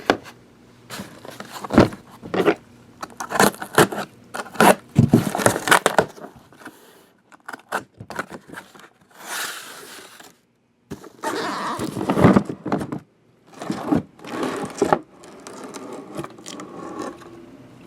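Hands handling sealed trading-card boxes in their plastic wrap: irregular scraping, rustling and clicks of cardboard and plastic, with short pauses.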